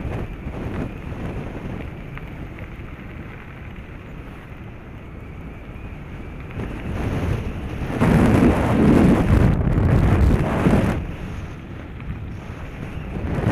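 Wind buffeting a moving action camera's microphone, a rushing noise that swells loudly for a few seconds past the middle and again near the end.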